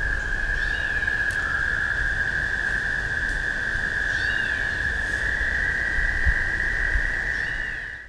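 A chorus of frogs calling together from a marsh, merging into one continuous, steady high trill. A bird's short call comes through three times, a few seconds apart.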